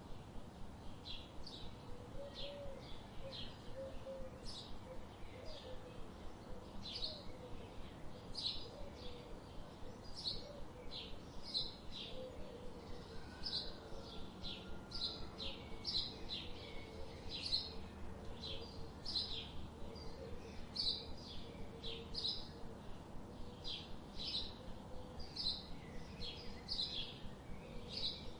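Budgerigars chirping: a steady stream of short, high chirps, two or three a second, over a faint low warble.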